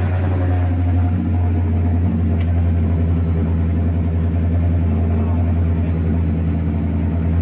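Rally car engine idling steadily at close range.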